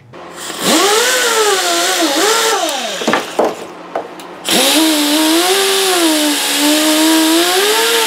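Rotary tool spinning a polishing wheel against the guitar's frets: a motor whine that sags and rises in pitch as it bears on the frets. It eases off about three seconds in and comes back louder about a second later.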